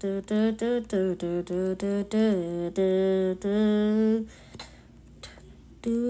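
A person singing a wordless tune in short notes, about three a second, ending on a longer held note about four seconds in. After a short quiet gap with a few faint clicks, the singing starts again near the end.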